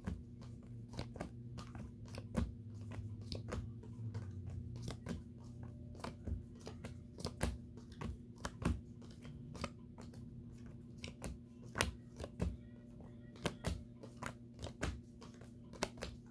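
Playing cards being dealt one at a time from the hand onto piles on a carpet: an irregular run of short flicks and snaps, about two or three a second, over a faint steady hum.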